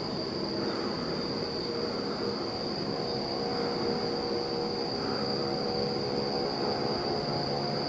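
Steady machinery hum with a constant high-pitched whine over it.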